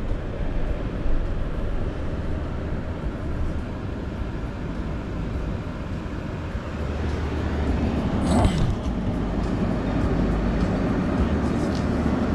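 Steady low rumble of a car's road and engine noise heard from inside the cabin while driving slowly. It gets somewhat louder about seven seconds in, with a brief louder noise about eight and a half seconds in.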